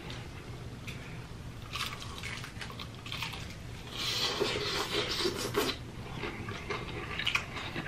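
Crunching bites into crispy fried chicken and chewing, with crackly mouth sounds that are loudest from about four seconds in.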